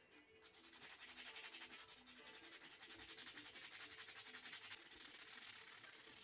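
A strip of sandpaper rubbed quickly back and forth by hand over a small carved wooden pendant, making an even scratching of rapid strokes that starts about half a second in.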